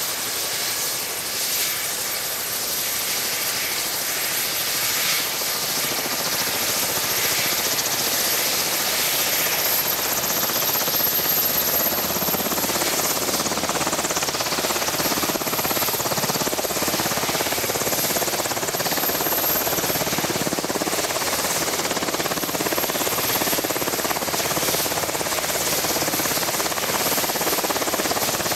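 Sikorsky VH-60 Marine One helicopter running on the ground with its main rotor turning, a steady rushing turbine-and-rotor noise with a thin high whine. It gets a little louder about five seconds in.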